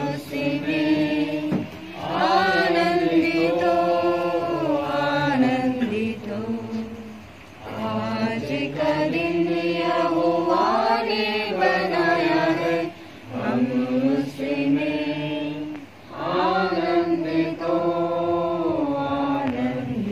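Voices singing a Christian prayer hymn in long, sustained phrases, with brief pauses between lines.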